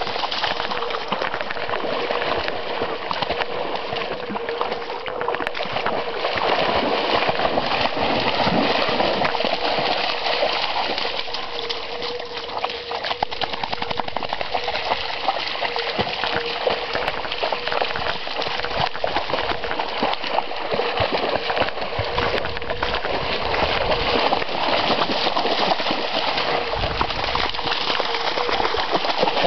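Giant schnauzers splashing and wading through shallow floodwater in wet grass, a dense run of splashes and sloshing water.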